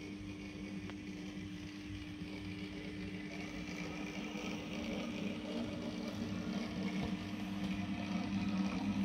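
OO gauge model locomotive running along the track: a steady electric motor hum with wheel-on-rail rumble that grows gradually louder as it approaches.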